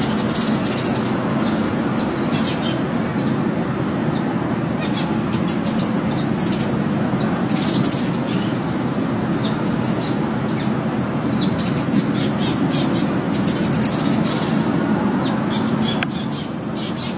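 Wild birds giving many short, high chirps in scattered clusters over a steady low rumble.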